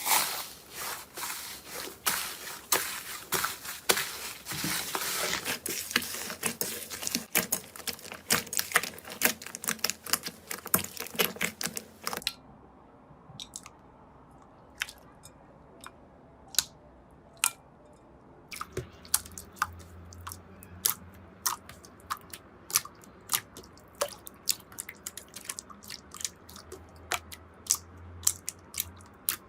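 Slime being squeezed and pressed by hand, giving a dense run of crackling clicks and pops. About twelve seconds in it cuts abruptly to a quieter stretch of sparser, sharper clicks and pops that grow more frequent again later on.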